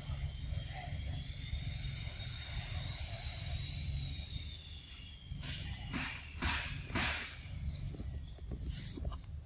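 Macaques eating mango: a few short, loud smacking and rustling noises about six to seven seconds in. They sit over a steady low rumble and a thin, high, steady whine that fades out about five seconds in.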